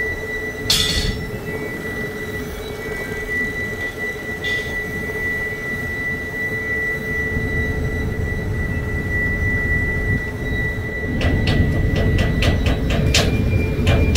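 Steady drone of port industrial machinery with a constant high-pitched whine over it. From about eleven seconds in, a quick run of sharp clicks joins it.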